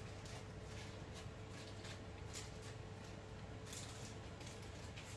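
Faint, soft rustling of paper as hands roll it around fish in a baking tray, a few light crinkles here and there, over a low steady hum.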